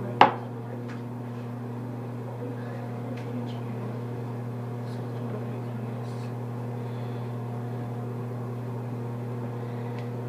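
A steady low machine hum, with one sharp knock just after the start and a few faint clicks.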